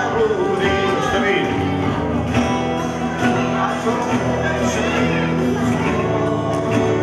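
Acoustic guitars strummed together while a man sings a song.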